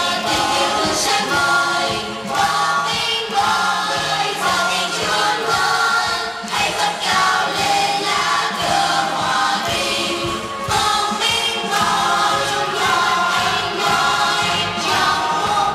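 A choir singing a choral song in several parts over an accompaniment with a steady beat.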